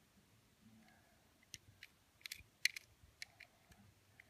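A handful of light clicks and taps as a small toy mail truck is handled and turned over in the fingers, the sharpest a little past halfway.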